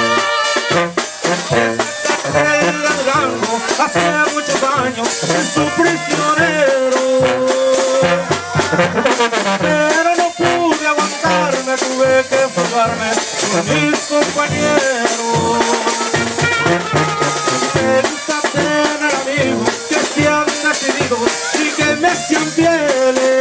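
Live tamborazo brass band playing a dance tune: sousaphone bass line, trumpets and other horns carrying the melody, and a tambora bass drum with a mounted cymbal keeping a steady beat.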